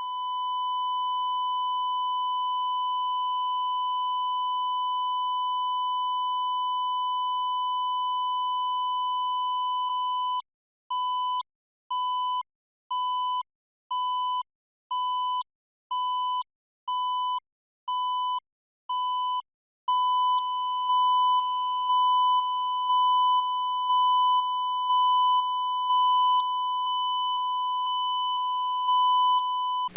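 Broadcast stereo line-up test tone at -20 dBFS. First it is steady on the left channel for about ten seconds. Then it beeps on and off about once a second on the right channel for about ten seconds, and then it plays on both channels, steady with a faint pulse about once a second.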